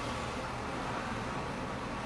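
Steady background noise, an even hiss with a low rumble beneath it and no distinct events.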